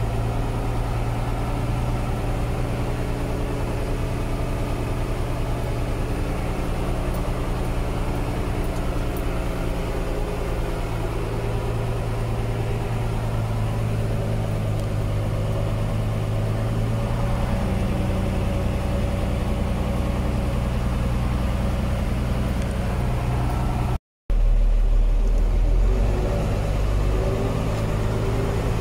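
Old tractor engine running steadily as the tractor drives along. Its note shifts about two-thirds of the way through. After a brief cut in the sound near the end, it runs louder and lower for a couple of seconds.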